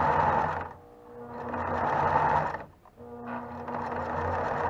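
Singer CG-590 heavy-duty sewing machine stitching through a vinyl strip, running steadily, stopping briefly about a second in and again just before three seconds, then running on.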